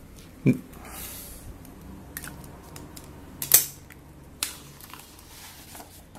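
Pencil and paper handling on a granite countertop: a few sharp clicks and knocks, the loudest about three and a half seconds in, with soft rustling of the paper sheets.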